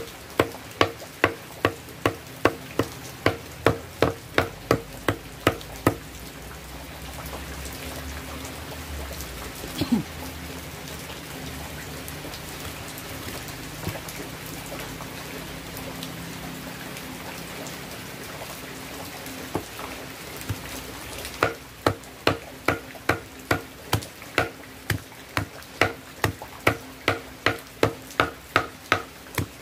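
Machete chopping fermented coconut husk against a block in quick repeated strokes, about two or three a second, shredding the husk into fibre for cocopeat. After about six seconds the chopping stops for roughly fifteen seconds, leaving a low steady noise and a single knock, then it resumes at the same pace.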